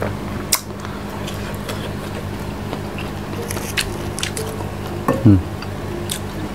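Background music with steady low notes, over which a ripe jambu bol (Malay rose apple) is pulled apart by hand: a few short crisp clicks and a louder wet squish about five seconds in as the juicy fruit splits.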